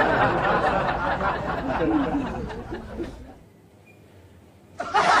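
People laughing and chuckling, fading out about three seconds in, with laughter starting up again near the end.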